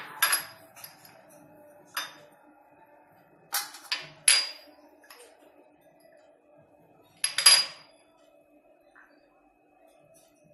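Small glass bowls clinking against each other and the stone countertop as spices are tipped from one bowl into another: several sharp, briefly ringing clinks spread through, over a faint steady hum.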